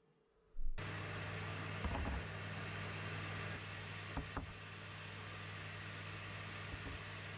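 An electric motor-driven machine switched on abruptly under a second in and then running steadily with a low hum and a broad hiss, with a couple of brief knocks.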